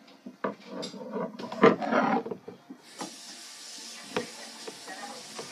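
Handling noise from a rubber practice tip being worked onto a wooden drumstick by hand: scattered knocks and rubbing, loudest a little under two seconds in. A steady hiss starts about three seconds in.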